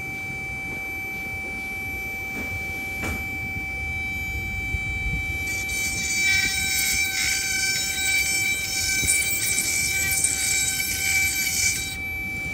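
Small electric rotary tool running with a steady high whine as its thin bit drills into a carnelian agate bead. About halfway through, a scratchy grinding screech of the bit biting the stone joins the whine and stops shortly before the end.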